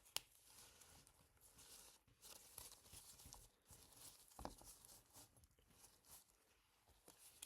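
Faint handling noises from small phone parts being worked by hand: a sharp click just after the start, then soft rustling and light taps.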